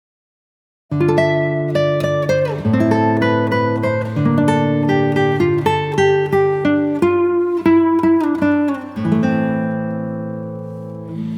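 Background music on plucked acoustic guitar, with quick picked notes and some sliding pitches, starting abruptly about a second in.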